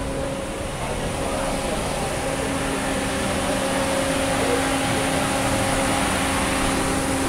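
Steady mechanical hum, a constant drone with several held tones over a background hiss; one low tone grows stronger about two seconds in.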